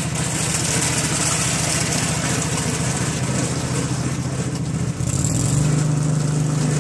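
Engine of a Rapid Spezial single-axle tractor running steadily with a rapid pulsing beat while pulling a hay rake; about five seconds in its note shifts and steadies into a stronger, even tone.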